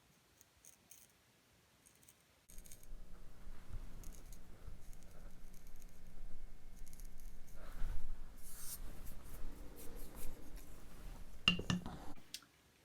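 Freshly sharpened pocket knife blade cutting paper in scratchy, irregular slices, a test of the edge's sharpness, over a steady low hum.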